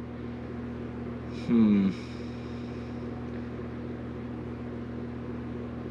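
Steady low hum of room machinery, with a man's short falling 'hmm' about one and a half seconds in.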